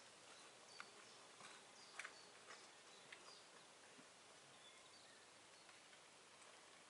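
Faint footsteps on a woodland hiking path, a soft step roughly every half second that fade out after about four seconds, with a few faint, short bird chirps.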